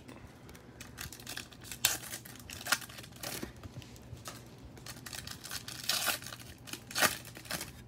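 Foil wrapper of a Bowman Chrome baseball card pack being torn open and crinkled by hand, in irregular crackling rustles, with sharper rips about two seconds in and near the end.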